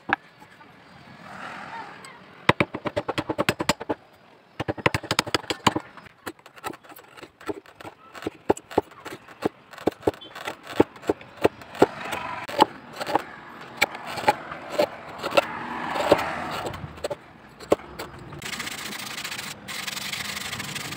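Chisel cutting and chipping a wooden knife handle, a quick run of sharp clicks and knocks as the blade bites into the wood. Near the end this gives way to a steady rasp of sandpaper rubbing the wood.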